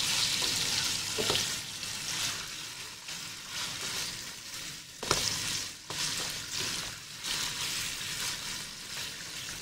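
Cubed chicken sizzling in hot oil in a pan, stirred with a spatula. A few clicks of the spatula against the pan break the steady sizzle, the sharpest about five seconds in.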